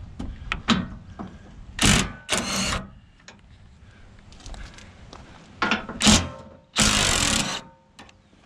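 DeWalt 20V XR brushless cordless impact gun hammering bumper bolts loose with an 18 mm socket, in four short bursts: two about two seconds in and two more near the end. Light clicks and clatter of the socket come between the bursts.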